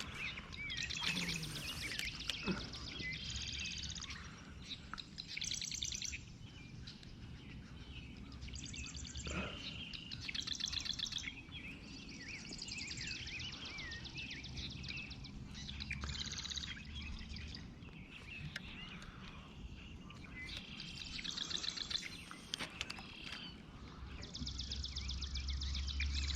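Outdoor ambience of songbirds singing and calling over and over, many of the phrases rapid trills. A low rumble rises at times, loudest near the end.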